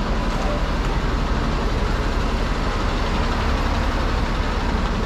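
Steady rumble of road traffic passing close by on a city street, with no single vehicle standing out.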